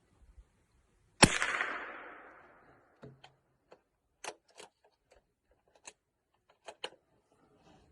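A single .22 Long Rifle rifle shot about a second in, fading out over about a second and a half, followed by a series of short, sharp clicks and snaps.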